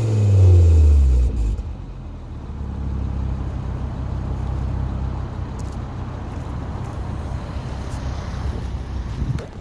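2011 Volvo C30 T5's turbocharged five-cylinder engine and Simons sport exhaust dropping from a rev back to idle over the first second and a half, then idling steadily. The owner says the rear muffler box buzzes on deceleration from about 2,500 RPM, and a smoke test found no leaks, so he puts the buzz down to the muffler box itself.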